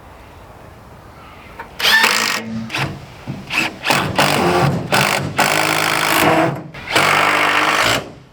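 Power drill running in several short bursts, driving screws to fit a small lock to a wooden hut door.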